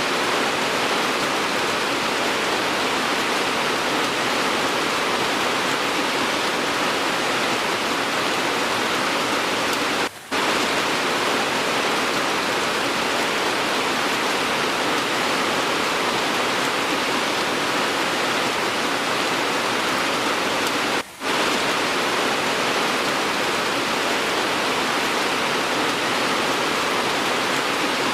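Steady rain, a dense, even hiss with no distinct drops. It cuts out for an instant twice, about ten seconds in and again about twenty-one seconds in, like the seams of an edited rain recording.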